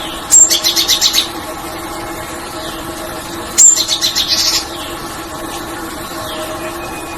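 A songbird sings the same short phrase twice, about three seconds apart: a high opening note, then a quick run of about eight chirps, each phrase under a second long. Under it runs a steady hum, with fainter downward-sliding calls from another bird.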